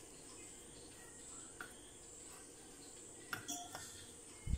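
Quiet room tone with a steady faint high-pitched drone, a few light clicks about three and a half seconds in, and a short soft low thump near the end.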